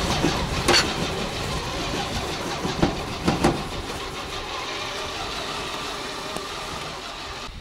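Homemade battery-powered self-propelled garden wheelbarrow with a front snow blade, pushing through snow: a steady noisy rush that slowly fades, with a knock about a second in and a few more around three seconds in.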